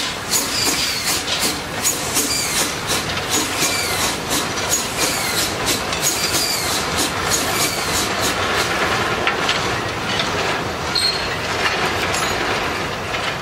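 Narrow-gauge steam train of a 0-6-0 tank locomotive and steel tipper wagons rolling slowly over the track. There is a steady rumble with rapid clanks and clicks of wheels over rail joints, two to three a second, and short high squeals; the clicks thin out after about eight seconds.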